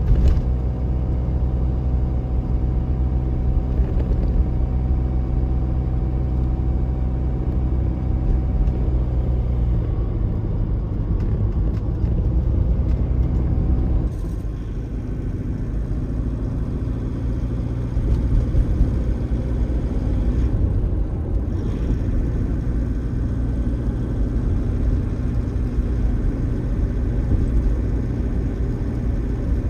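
Car driving at steady speed on an open road: a steady engine hum with tyre and road noise. About halfway through the hum changes abruptly to a rougher, noisier sound.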